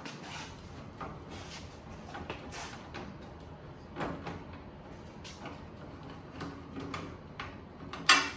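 Ratchet wrench with a 10 mm socket working the headlight mounting bolts loose: scattered, irregular clicks and small knocks, with one sharp, loud click near the end.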